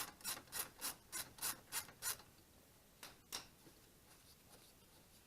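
Ratchet wrench with a 14 mm socket being swung back and forth to loosen a foot peg bolt: a quick run of rasping ratchet strokes, about three a second, that stops about two seconds in, then two more strokes just after three seconds.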